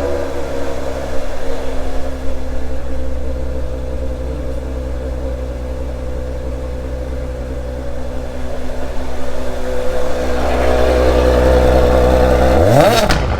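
Supercar engine idling steadily, then revved once near the end in a quick throttle blip, the pitch shooting up and dropping straight back.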